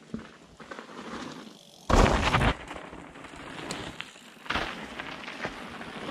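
Mountain bike rolling over a frozen dirt trail: tyre crunch and bike rattle with many small clicks, under wind on the camera microphone. A loud rush of noise lasts about half a second around two seconds in.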